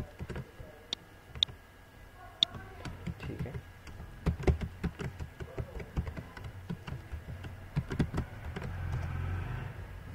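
Computer keyboard keys being typed in irregular, uneven keystrokes, sharp clicks at varying spacing. A low hum swells briefly near the end.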